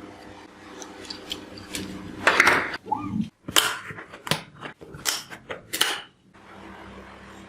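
Hard plastic parts clicking and knocking together in a quick irregular series over a steady low hum, the clatter stopping abruptly a few times.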